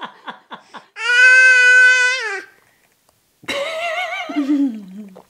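A toddler's loud, high-pitched squeal held steady for over a second, then after a pause a wavering, warbling whine that slides down in pitch.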